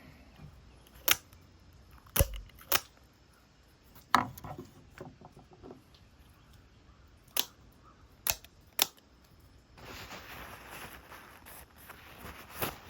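Microtech out-the-front automatic knife being test-fired: sharp spring-loaded snaps as the blade shoots out and slams back, about eight in all, some in quick pairs. This is a function check after cleaning and oiling, to make sure the action does not misfire. A faint steady hiss comes in near the end.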